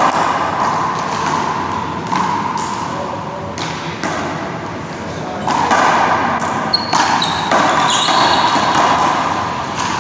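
One-wall handball rally: a rubber handball slapped by gloved hands, smacking against the wall and bouncing on the floor in a string of sharp hits that come faster in the second half. A few short squeaks, likely sneaker soles, come about seven seconds in.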